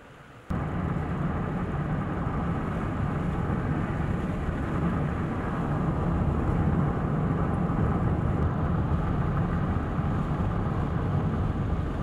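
Steady rumble of vehicle and tyre noise with traffic on a snow-covered road, starting abruptly about half a second in.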